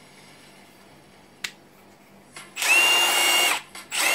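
Milwaukee M12 Fuel Stubby impact wrench's brushless motor free-running with no socket on it, in two short trigger pulls: each starts with a rising whine and then holds steady for about a second, the second beginning near the end. A single sharp click comes about a second and a half in.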